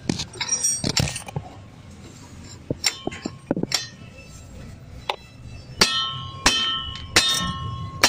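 Hammer blows on a steel tube, driving a driveshaft carrier bearing into its support. There are a few scattered knocks at first; then, from about six seconds in, steady strikes come about every 0.7 seconds, each leaving the metal ringing.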